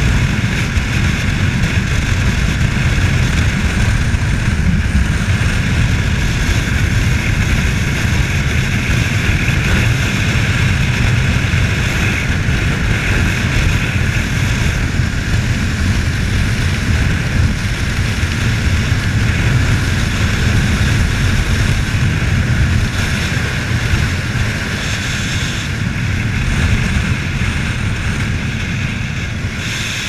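Wind rushing over the camera microphone on a Honda CBR250R at road speed, a steady loud roar with the bike's single-cylinder engine running underneath. It eases a little in the last few seconds as the bike slows.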